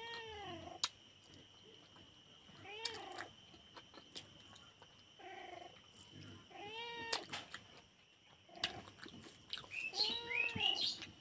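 A cat meowing over and over, about five calls a few seconds apart, each rising then falling in pitch, with a few sharp clicks in between.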